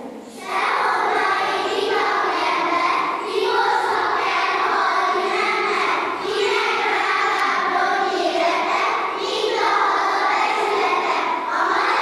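Children's choir singing, the voices coming in together after a short break about half a second in.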